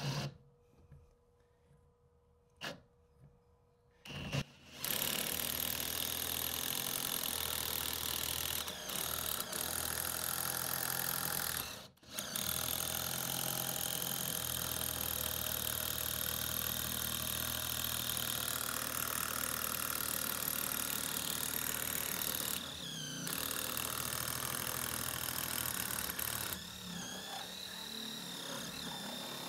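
Cordless impact driver spinning an internal pipe cutter inside a drain pipe, cutting the pipe down. It starts about four seconds in, stops briefly near the middle, then runs steadily again.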